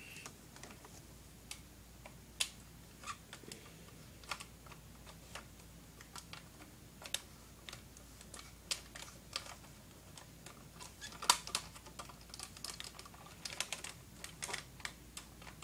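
Hard plastic parts of a toy robot clicking and knocking as it is handled and pieced back together: scattered light clicks, coming thicker in the last few seconds.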